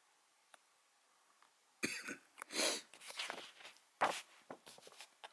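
Paper leaflet being handled and its pages turned: a run of rustles and crinkles starting about two seconds in, with the sharpest page snap just after four seconds.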